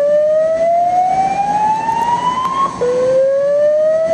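Hotel alarm system sounding a slow-whoop tone: one loud rising sweep that cuts off about two-thirds of the way through, then starts again from low and climbs. It is the hotel's early-alert alarm, sounded while the cause is being investigated.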